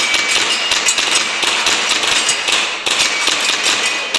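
Gas blowback airsoft pistols firing rapidly: a dense clatter of shots and BB impacts, with a short break about three seconds in.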